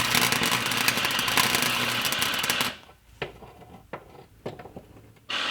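Electric welding arc crackling and sputtering as new patch steel is welded onto a car's rusted rear frame, stopping a little under three seconds in. A few faint ticks follow, then a second short burst of welding near the end.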